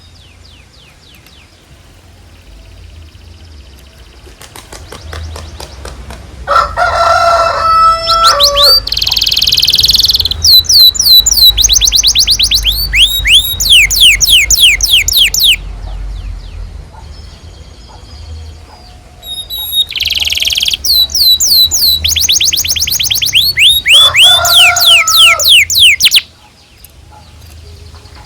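Canary singing: faint trills at first, then two loud passages of rapid repeated falling chirps ('cuit cuit'), each joined by a brief lower-pitched call.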